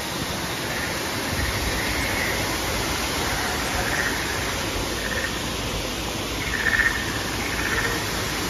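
Steady rush of several waterfalls cascading over rockwork, an even wash of falling water.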